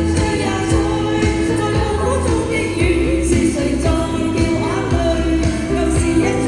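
A pop song sung by a solo voice over instrumental accompaniment with a steady beat.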